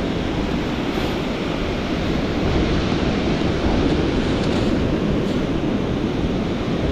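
Surf washing steadily on the beach, with wind rumbling on the microphone.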